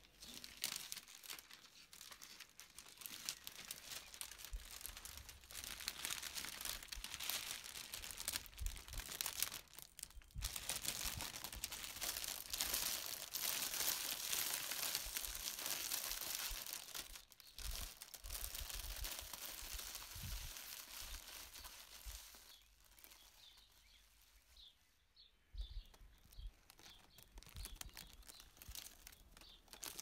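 Clear cellophane wrap crinkling and crackling as it is gathered and bunched by hand around a wicker basket, with two short pauses. The crinkling becomes much quieter and sparser over the last several seconds.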